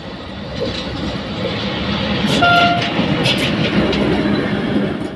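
SM42 diesel shunting locomotive passing close by, its engine running with a steady low hum and growing louder, with wheel-on-rail clicks. A short high tone sounds about halfway through.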